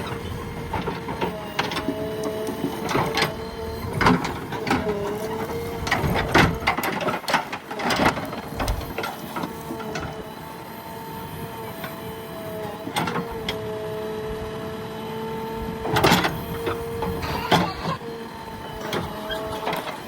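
JCB backhoe loader working: a steady engine and hydraulic whine that dips slightly in pitch now and then, broken by irregular sharp clanks and knocks from the digging arm and bucket.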